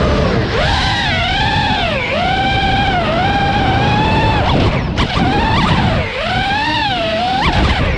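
Brushless motors and propellers of a 5-inch Nazgul 5 FPV quadcopter whining in flight, the pitch swooping up and down as the throttle is worked through freestyle moves, with brief sharp drops in pitch about five and six seconds in, over a low rumble.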